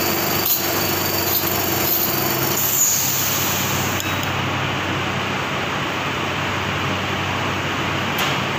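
Steady drone of running factory machinery, with a hum that drops out about two and a half seconds in. A few light metallic clicks come from a hex key working on the packing machine.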